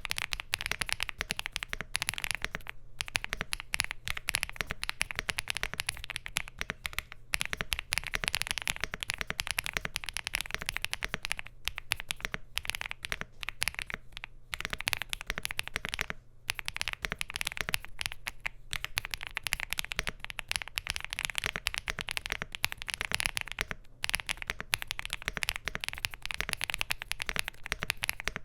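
Rapid typing on a Bridge75 Plus mechanical keyboard with SC linear switches, an FR4 plate and PBT Cherry-profile keycaps in a gasket-mounted aluminium case: a dense stream of key clacks, broken by a few short pauses.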